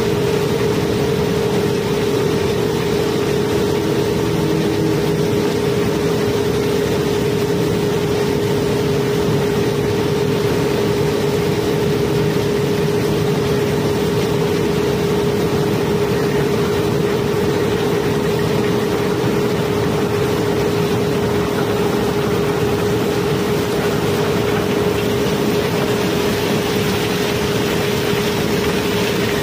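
Conveyor carrying cobblestones out from under the pile as a barge is unloaded: a steady rush and rattle of stone over a constant machine hum with one mid-pitched tone.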